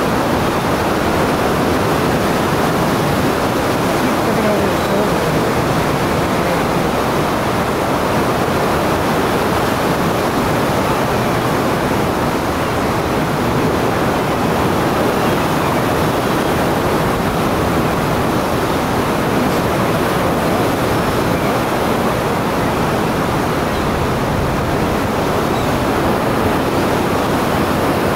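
Steady rush of the fast-flowing Niagara River below the power plant, an even, unbroken roar of water, with a few faint high gull calls over it.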